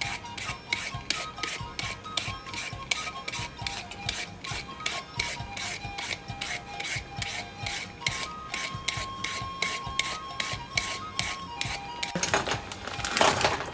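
Green papaya being shredded by hand: quick, even scraping strokes, about four a second, with a louder, longer scrape near the end.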